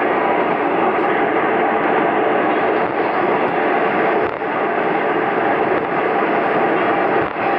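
Steady running noise of a KiHa 47 diesel railcar at speed, heard from inside the cabin, with two brief dips in level.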